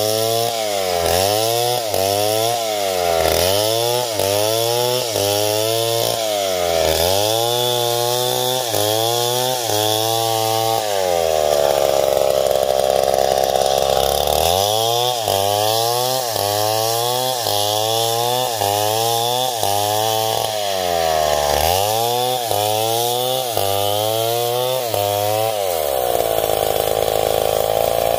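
Stihl 070 two-stroke chainsaw ripping lengthwise through coconut wood, its engine pitch dipping under load and climbing again about once a second. About eleven seconds in, and again near the end, it holds a steady high pitch for a few seconds.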